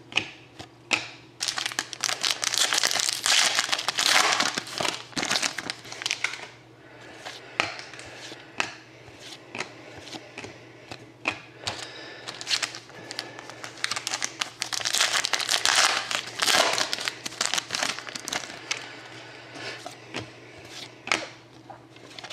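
Crinkling and tearing of a foil trading-card pack wrapper as it is opened and handled, in two long stretches, with short clicks and slides of cards being handled in between.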